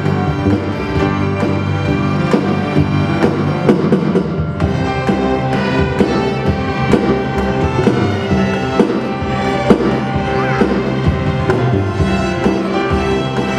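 Student string orchestra playing: bowed violins, violas and cellos holding full chords, with regular drum strokes marking the beat.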